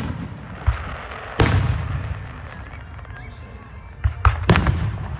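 Fireworks exploding: a sharp bang at the start, a bigger one about a second and a half in that fades out slowly, and a quick run of three bangs near the end.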